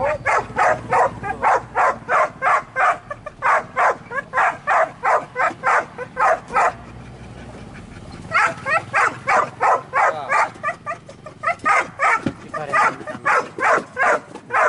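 Hunting dogs barking rapidly and repeatedly, about three barks a second, with a break of about a second and a half midway before the barking resumes.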